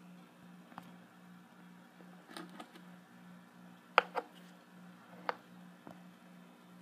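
Small aquarium air pump running with a quiet low hum that pulses two or three times a second, while a few sharp clicks sound over it, the loudest about four seconds in.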